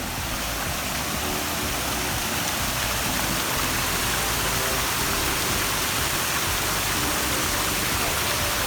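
Rushing water, a steady even roar that grows a little louder over the first couple of seconds.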